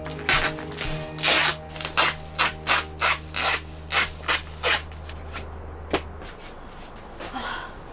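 Repeated rubbing strokes by hand, about three a second, stopping about five seconds in, over a steady low hum that ends about a second later.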